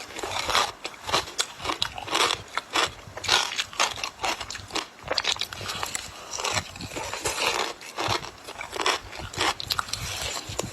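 Ice being bitten and chewed up, a rapid, irregular run of sharp crunches and cracks several times a second.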